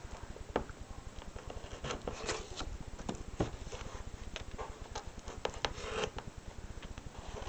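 Sheet of paper being handled and rubbed close to the microphone: rustling and scraping with irregular sharp clicks and taps throughout.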